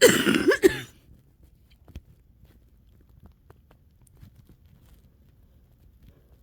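A wet cough in two quick bursts right at the start, the sign of lungs starting to clear, followed by a few faint small clicks.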